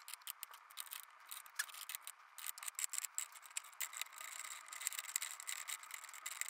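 Small steel helical pinion gears of a 2000 Acura Integra Type R helical limited-slip differential clicking and scraping against each other and the case as they are fitted back into their pockets by hand: a quick, irregular run of light metallic ticks and rattles.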